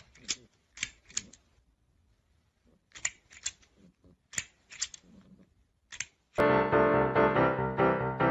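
Sharp clicks and taps, often in pairs, with quiet gaps between them. About six seconds in, loud piano background music starts.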